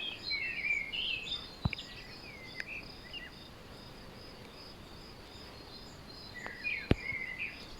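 Small birds singing in short chirping phrases, at the start and again near the end, over a steady high insect trill and an even background hiss. Two sharp clicks cut in, one near two seconds and a louder one near seven seconds.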